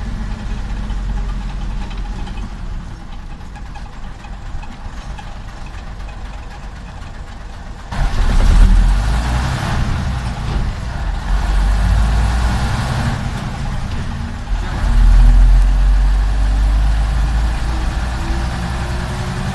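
Diesel engine of a Jelcz 043 bus, heard from inside the cab, running quietly at first, then getting much louder about eight seconds in as it comes under load and pulls the bus along, with a second surge about three quarters of the way through.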